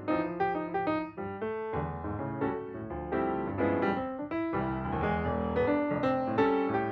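Background music played on piano.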